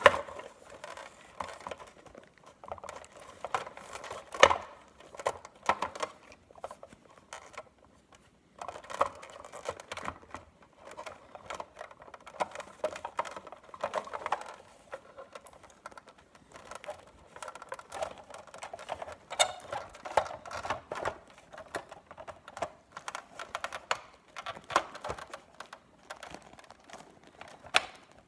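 Small plastic parts of a Big Mouth Billy Bass's gear mechanism being handled and fitted by hand: irregular clicks, taps and scraping, with a short pause about eight seconds in.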